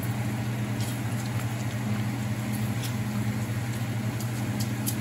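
Bacon frying in hot grease in a hammered copper pan: a steady sizzle with scattered sharp pops, over a steady low hum.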